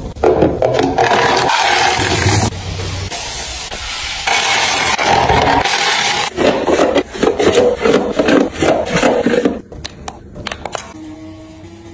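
Dry food flakes being poured and shaken off a paper sheet into a clear plastic container, a gritty rustling and scraping in several short cuts. It stops just before ten seconds in, and near the end a faint steady tone sets in.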